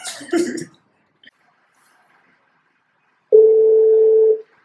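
Phone ringback tone over a speakerphone: a single steady beep about a second long as the outgoing call rings.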